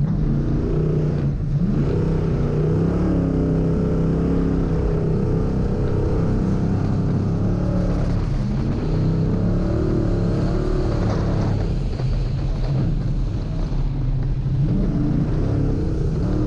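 Rally-raid car engine running hard under load, its revs rising and falling.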